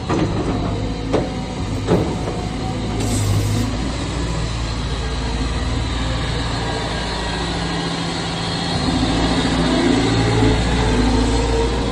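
Caterpillar 320GX excavator's diesel engine running steadily, with two sharp knocks about one and two seconds in and a whine that rises and falls over the last few seconds.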